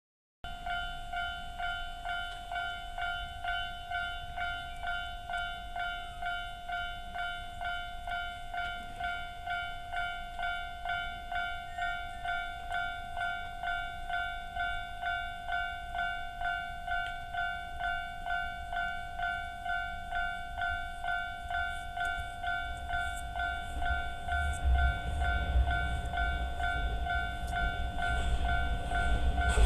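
Japanese level-crossing warning bell of the standard electronic type, ringing a steady two-tone ding about twice a second. From about two-thirds of the way in, the low rumble of an approaching train rises under it.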